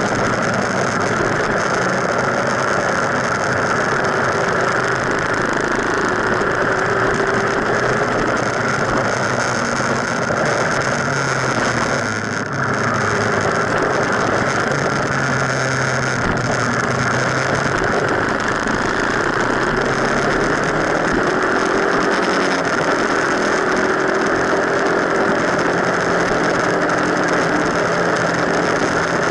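Motorcycle riding at speed, heard from a camera mounted low on the front fork: a steady rush of wind and road noise, with the engine's note rising and falling underneath. The sound dips briefly about twelve seconds in.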